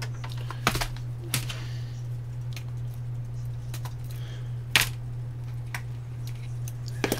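Scattered light clicks and knocks of a clear plastic jumper-wire box being handled and set down, the sharpest about five seconds in, over a steady low hum.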